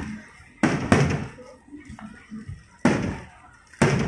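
Aerial firework shells bursting: four sharp bangs, each trailing off. Two come in quick succession just under a second in, another near three seconds, and one near the end.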